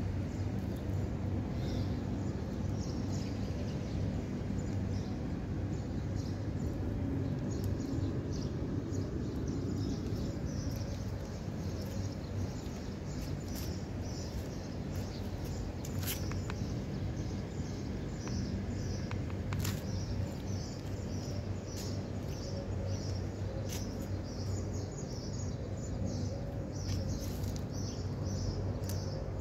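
Small birds chirping over and over over a steady low hum, with a couple of sharp clicks about two-thirds of the way in.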